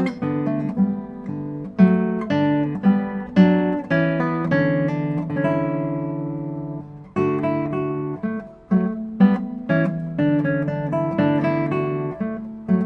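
Solo acoustic guitar music, plucked notes and chords in a gentle melody, with one chord left ringing for a few seconds in the middle.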